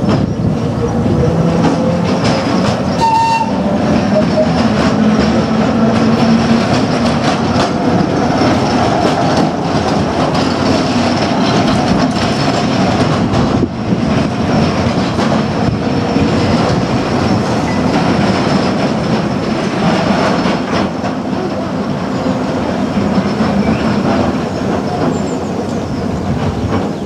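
Double-decker electric tram running on its rails close by, with steady wheel rumble and clatter over the track.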